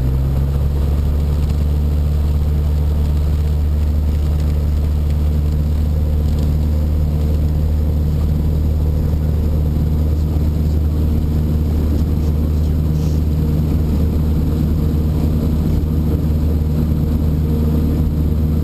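Cessna 152's four-cylinder Lycoming piston engine and propeller running steadily at takeoff power, heard from inside the cabin during the takeoff roll on grass. The pitch settles right at the start and then holds level.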